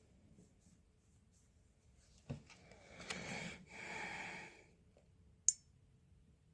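A light knock, then a long breathy sound in two swells, like a heavy breath or sigh, and a single sharp click near the end.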